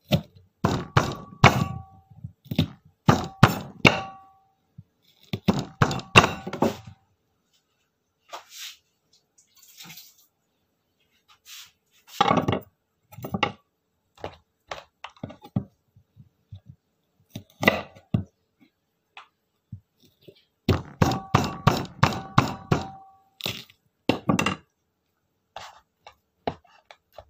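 Kitchen knife chopping a corn cob into pieces on a wooden cutting board: bursts of quick thunks, several a second, some strokes leaving a short ringing note.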